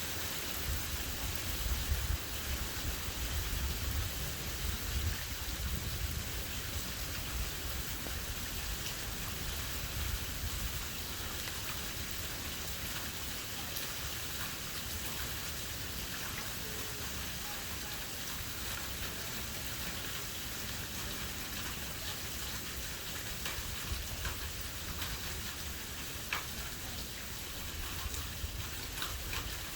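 Steady rain from a thunderstorm, with scattered sharp ticks of drops striking and a low rumble that is strongest in the first ten seconds or so.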